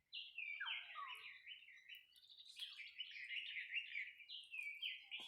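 Small birds chirping: a near-continuous run of short, quick, high notes, with a few lower notes about a second in.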